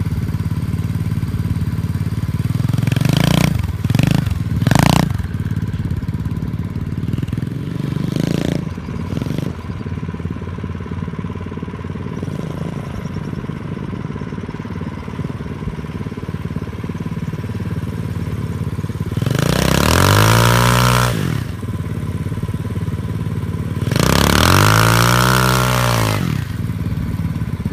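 SSR 125cc pit bike's single-cylinder four-stroke engine idling, with short throttle blips a few seconds in. Near the end come two long revs, each rising then falling in pitch; the second spins the rear wheel in the dirt.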